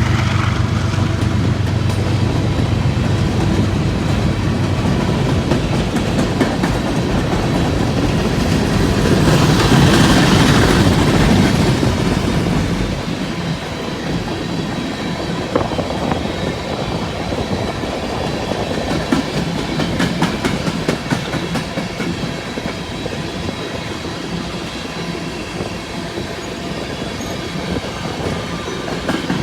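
Empty coal train passing: a diesel locomotive's steady engine drone fades over the first few seconds, then the empty hopper cars roll by with a continuous clickety-clack of wheels over rail joints, loudest about ten seconds in.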